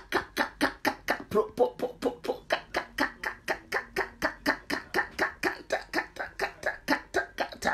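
A woman's voice rattling off a fast, even string of short repeated syllables, about five or six a second, with no recognisable words.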